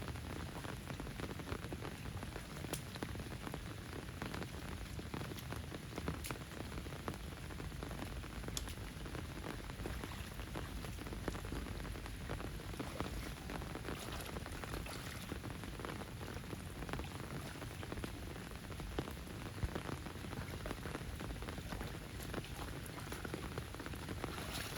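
Steady rain falling, a dense even hiss with scattered louder drops.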